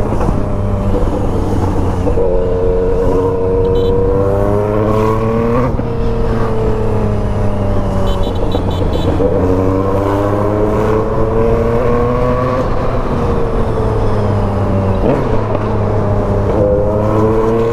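Motorcycle engine under way in traffic, its revs climbing and falling several times through the gears, with a sharp drop about six seconds in.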